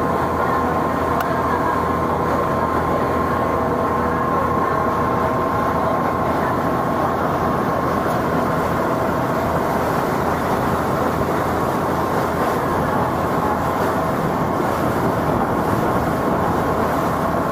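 Tour boat's engine running steadily under way: a constant drone with a thin steady whine above it, unchanging throughout.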